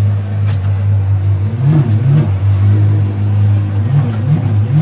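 Car engine idling with a steady low hum, with a few short rises and falls in pitch over it.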